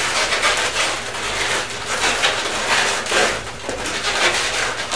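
Inflated 260Q latex twisting balloons rubbing and squeaking against each other as a balloon scrap is worked through a woven balloon hat, in a run of uneven scrapes.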